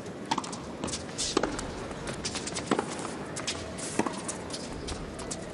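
Tennis ball struck back and forth by rackets in a baseline rally, with four sharp hits about one and a quarter seconds apart. Fainter footsteps and scuffs come from the hard court between them.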